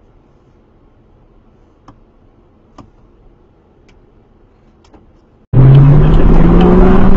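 Faint low road rumble with a few soft ticks, then about five and a half seconds in a loud car engine cuts in suddenly, revving up with its pitch climbing steadily.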